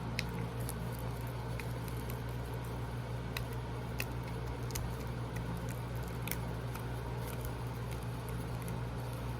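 Electric room fan running with a steady low hum, with scattered faint clicks and crinkles of small plastic packaging being handled.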